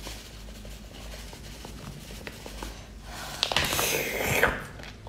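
A plastic seasoning packet being handled: faint rustling and a few small clicks, then about a second of louder crinkling past the middle.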